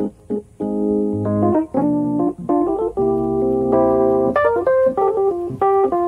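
Background music: held chords on a keyboard-like instrument with a short melody of changing notes over them.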